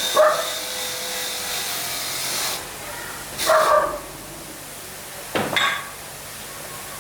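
A dog barking three times, short single barks a few seconds apart.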